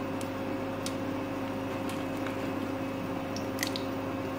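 Whole spices in heating oil in a kadhai giving off a few faint ticks and crackles over a steady background hum.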